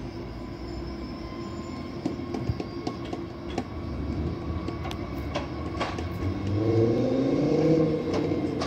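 Electric tram running along its track toward the platform: a steady low rolling rumble with scattered sharp clicks, then its motors whine in gliding tones that rise and fall as it gets louder near the end.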